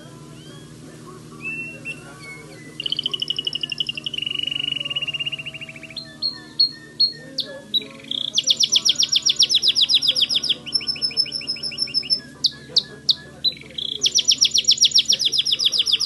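White Timbrado canary singing: bursts of very fast, rattling trills broken by short chirped notes, with the loudest trill runs in the second half.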